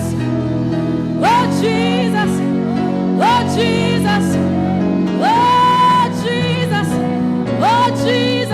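Live gospel worship music: a woman's high voice sings wordless phrases, each sliding up to a long note with vibrato about every two seconds, over sustained keyboard-like chords.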